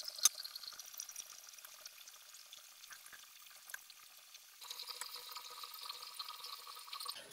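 Faint crinkling of thin plastic bags and the wet scrape and pour of bean batter as moi moi bags are filled and tied by hand. A faint steady hum joins about two-thirds of the way through.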